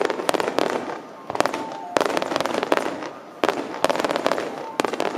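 Aerial firework shells bursting in quick succession: sharp bangs in clusters of two or three, about a second apart, with a rumbling wash of sound between them.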